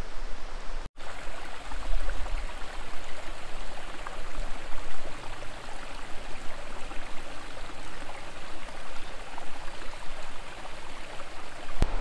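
River water rushing steadily past, an even hiss of flowing water, with a momentary dropout about a second in.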